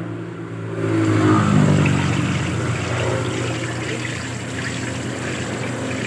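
Top-loading washing machine running its wash cycle: the motor hums steadily while the tub swirls the clothes through the water, with churning and sloshing. The motor gets louder about a second in as the tub spins hard, then holds steady.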